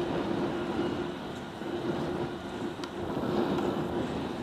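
EMD SD70ACe diesel-electric locomotive approaching with its diesel engine running, a steady low hum over rumbling noise.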